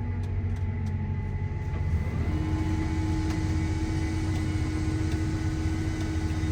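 Combine harvester running steadily, heard from inside the cab: a constant low machine hum. About two seconds in, a new steady hum joins it and holds.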